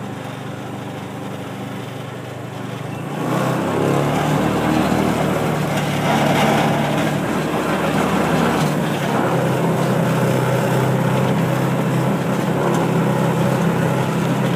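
Engine of a small ride-on vehicle running steadily, then speeding up and getting louder about three seconds in and carrying on at the higher speed.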